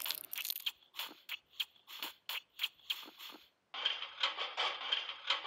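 A run of short, sharp clicks and ticks, then from about two-thirds of the way in a steady crinkly rustling with clicks in it.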